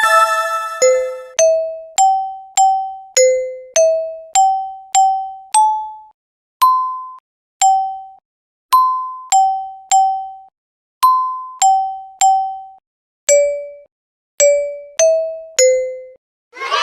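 A simple melody played one note at a time on a bell-like chiming instrument, such as a glockenspiel, about twenty notes, each ringing and dying away. The notes come evenly at first, then more slowly, with short silences between them.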